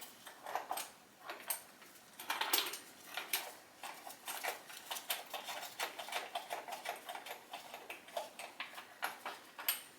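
Ratchet wrench clicking in quick runs with light metal taps, working loose the bolts of an LS1 engine's intake manifold; the clicking comes thickest from about four seconds in.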